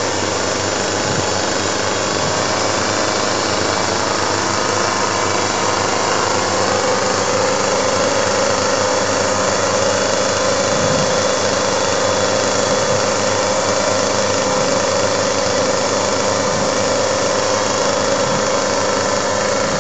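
Chainsaw engines running steadily, with a steady whine that comes in about six seconds in.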